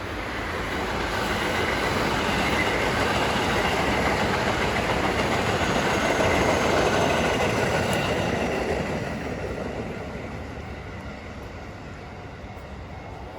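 JR West 207 series 1000-subseries electric train passing close by: the running noise of wheels on rail builds over the first couple of seconds, stays loud for about six seconds, then fades away from about nine seconds in.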